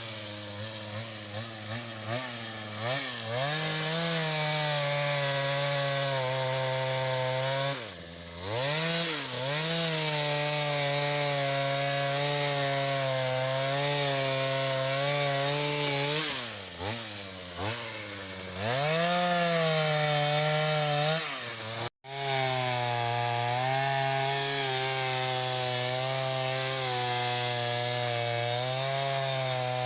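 Chainsaw running under load while cutting wood, the engine note sagging in pitch and picking back up a couple of times; it drops out abruptly for an instant about two-thirds of the way through.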